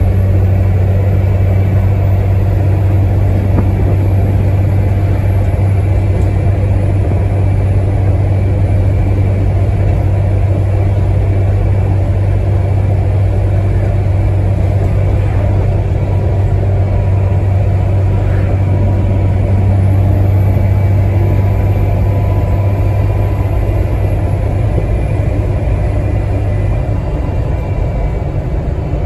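Bus engine running steadily, heard from inside the passenger saloon as a strong, constant low hum with rattly road and body noise over it. The hum eases off a little near the end.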